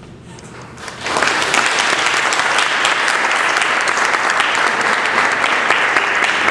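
Audience applauding, starting suddenly about a second in and holding steady as dense clapping.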